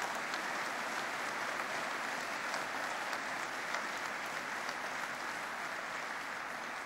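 Audience applause, a steady even clapping from a large room of diners, easing off slightly near the end.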